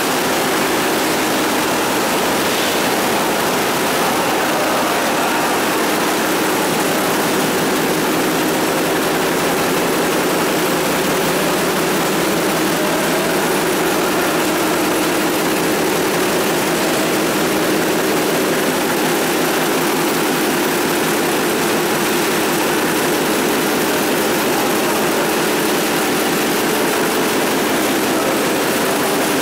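Food-processing machinery running with a steady, unchanging mechanical drone and a fast, fine rattle.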